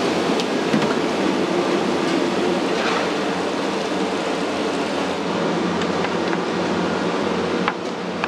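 Steady rushing noise of a gas wok burner, with mud crabs sizzling in the wok and a few light clicks. The noise drops a little near the end.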